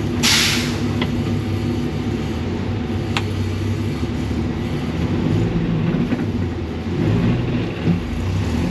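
Dodge Viper's V10 idling steadily on a chassis dyno, with a short hiss about a quarter second in and a sharp click about three seconds in. Near the end the engine note begins to climb.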